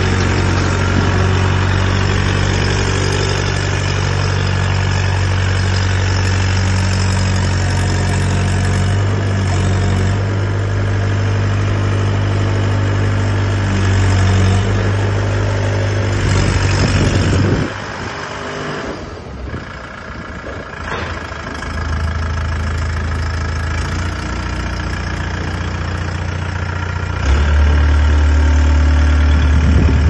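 Engine of a crawler-mounted pile driver rig running steadily as the machine is driven on its tracks by its side-mounted levers. Past halfway the sound drops away for a few seconds, then comes back, and near the end it steps up louder and deeper.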